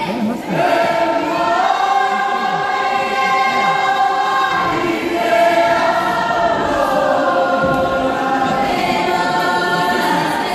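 A Cook Islands performing group singing together in long, held notes that move slowly from pitch to pitch.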